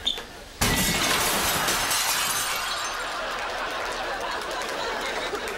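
A sudden crash of breaking glass about half a second in, followed by a studio audience laughing and applauding.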